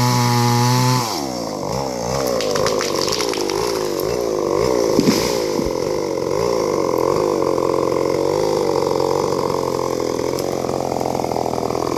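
Two-stroke chainsaw running at high revs, then the throttle let off about a second in, so it drops to a lower, wavering speed for the rest. A couple of sharp knocks about halfway through.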